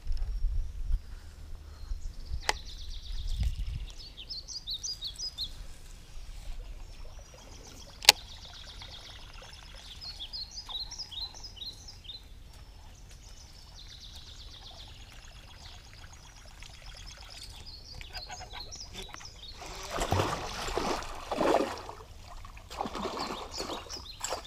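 Birds chirping in short runs of quick notes, heard three times. There is a single sharp click about eight seconds in, and water splashing and trickling over the last few seconds.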